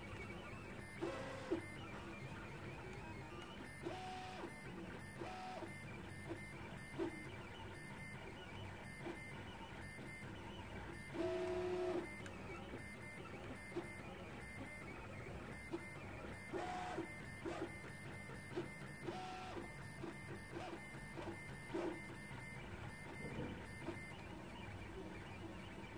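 Prusa i3 MK2S 3D printer's stepper motors driving a pen head across paper as a pen plotter: a run of short moves, some with a brief steady whine at different pitches, the longest and loudest a little before halfway.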